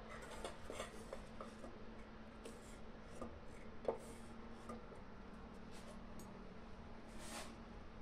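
Wooden slotted spatula scraping and knocking lightly against a non-stick kadhai while fishing boiled drumstick pieces out of the cooking water, with a sharper knock about four seconds in. A faint low hum stops about halfway through.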